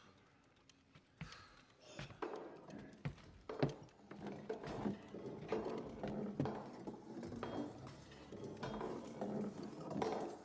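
Slow boot footsteps on wooden hallway floorboards with scattered clicks, irregular knocks starting about a second in.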